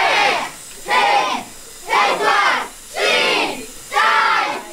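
A crowd shouting in unison, five shouts about one a second: a group counting down aloud together.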